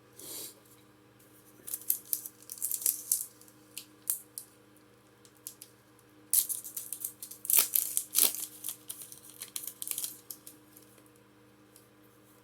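Pokémon booster pack's foil wrapper being torn open and crinkled in the hands, in two spells of crackly rustling, the second about six seconds in and the louder.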